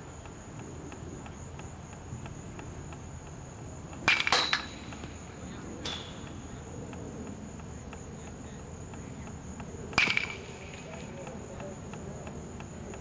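Three sharp metallic pings of an aluminum baseball bat hitting balls, about 4 s in, about 2 s later, and near 10 s, each with a brief ring. Under them crickets chirr steadily at a high pitch.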